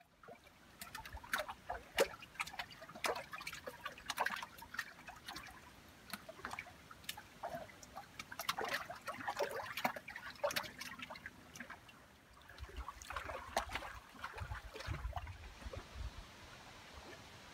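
Water trickling and lapping in small, irregular splashes and drips. A low wind rumble on the microphone comes in during the second half.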